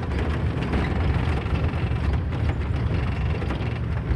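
A vehicle driving along a bumpy dirt track, its engine and tyre rumble heard from inside the cabin.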